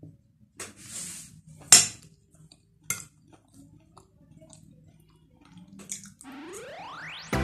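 Fork clinking and scraping against a plate during a meal, a few separate clinks, the sharpest about two seconds in. Near the end a tone sweeps up in pitch.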